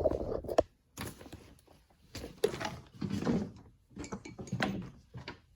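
Camera handling noise: irregular knocks, bumps and rubbing in short bursts about a second apart, as the camera is moved in close.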